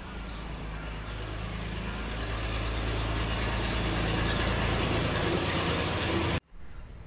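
A motor running with a steady low hum that gets gradually louder, then cuts off suddenly about six seconds in.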